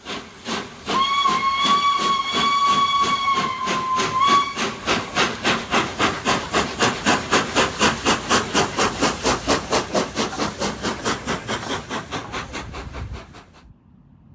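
Steam locomotive 60163 Tornado, a three-cylinder A1 Pacific, sounds one long whistle blast and then a short one. It then works under steam with quick, even exhaust beats, about four or five a second, over a steady hiss. The beats cut off suddenly near the end.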